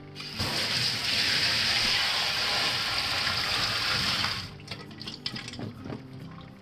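Kitchen tap running onto boiled baby potatoes in a stainless mesh strainer over a steel sink, then shut off about four and a half seconds in. Light clicks and knocks follow as the potatoes are handled in the strainer.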